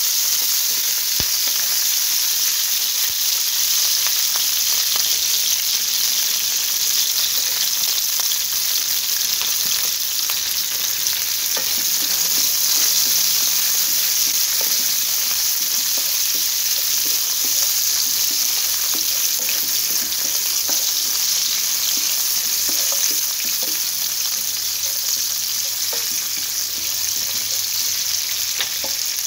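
Onion petals and chopped garlic sizzling steadily in hot oil in a frying pan as they are sautéed, with a spatula stirring and scraping through them now and then.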